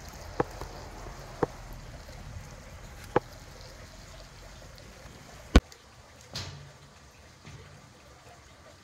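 Wood campfire burning with a steady hiss and four sharp crackling pops, the loudest about five and a half seconds in, followed by a short swell of hiss.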